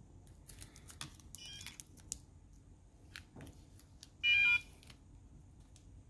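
The active buzzer of a DIY PN532 + ESP8266 NFC tag reader gives one short electronic beep about four seconds in, the reader's signal that a tag has been scanned. A few light clicks and taps come before it.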